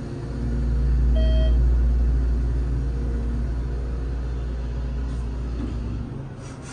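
thyssenkrupp Endura MRL hydraulic elevator travelling up one floor: a low rumble swells about a second in and stops about six seconds in as the cab levels, over a steady hum. A short electronic chime sounds about a second in.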